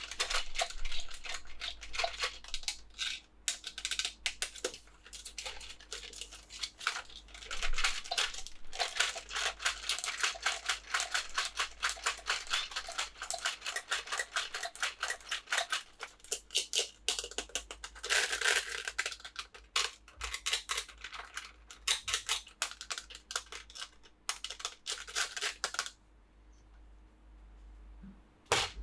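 Toy packaging being handled and opened by hand: rapid crinkling, tearing and clicking that stops near the end.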